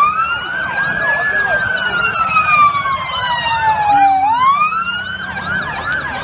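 Two emergency vehicle sirens sounding together: one slow wail that rises, falls gradually and rises again about four seconds in, and another with quick repeated up-and-down sweeps.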